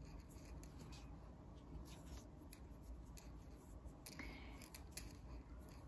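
Faint rubbing and scattered light ticks of a crochet hook pulling thread through stitches, over a low steady hum.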